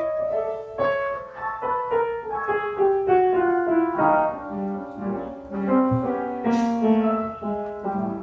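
Background piano music: a melody of single notes stepping downward in pitch.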